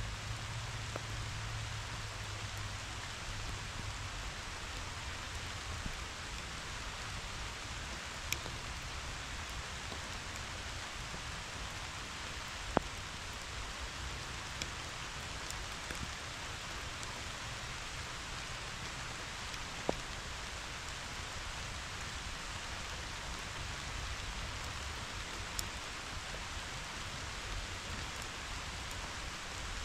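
Steady summer rain falling on tall grass and wildflowers: an even hiss, with occasional sharp ticks scattered through it.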